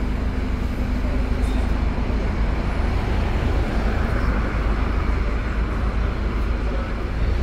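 Sightseeing bus driving through city traffic: steady engine rumble with tyre and traffic noise, a hiss swelling for a couple of seconds in the middle.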